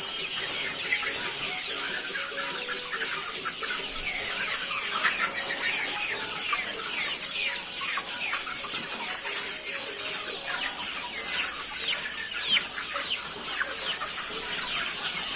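A flock of desi chickens calling, many short high calls overlapping one another without a break.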